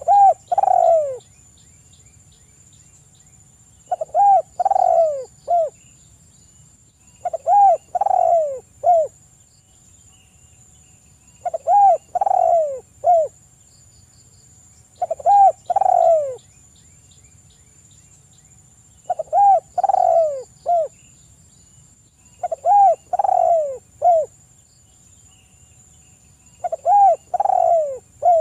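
Spotted dove cooing: a three- to four-note coo phrase repeated about every four seconds, eight phrases in all. A faint steady high insect-like whine runs behind it.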